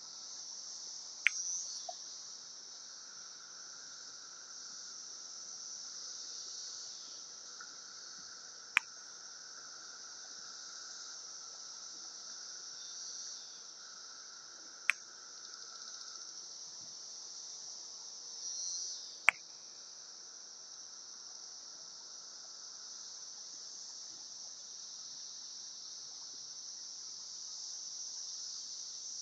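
Steady chorus of Brood X periodical cicadas, a constant high-pitched hiss, joined for several seconds in the first half by a lower steady drone. Four sharp clicks stand out above the chorus as the loudest sounds.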